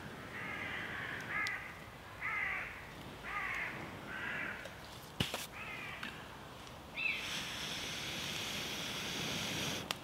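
A crow cawing about six times, roughly once a second. There is a sharp click about five seconds in, and a steady high hiss from about seven seconds in.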